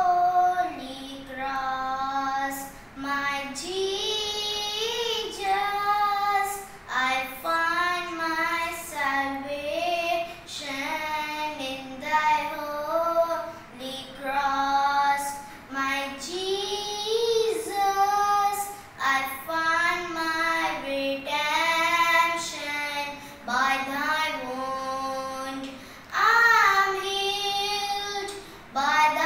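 A boy singing a devotional song solo, with no accompaniment: one voice carrying the melody in held notes and short phrases.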